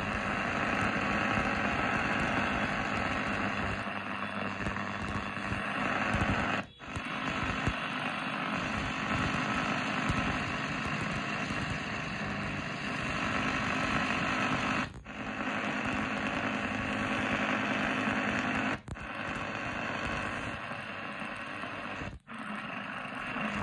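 Eton Field BT Grundig Edition radio's loudspeaker giving out steady AM medium-wave noise and static, muting briefly four times as the tuner steps from channel to channel. The set is very sensitive, and the electrical noise it picks up indoors drowns out the weak stations.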